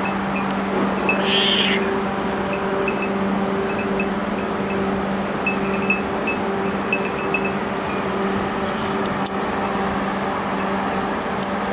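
A tabby housecat meows once, about a second and a half in, over a steady hum and hiss.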